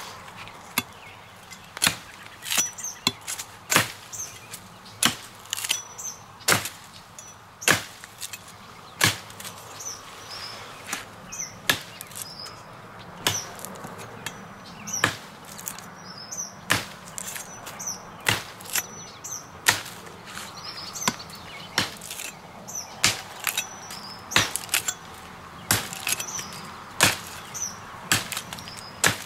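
Ontario RTAK II large fixed-blade knife chopping into the trunk of a thin, half-dead tree: a long series of sharp blade-on-wood strikes, about one a second.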